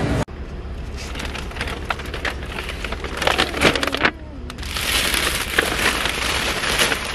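Plastic wrapping crinkling and rustling as it is handled, full of small crackles, with a louder, hissier stretch in the second half.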